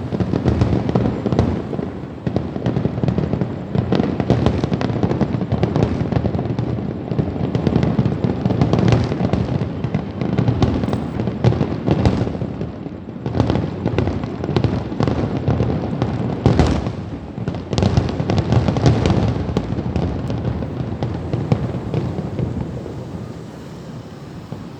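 Fireworks display: a dense, continuous run of overlapping bangs and crackles that eases off over the last few seconds.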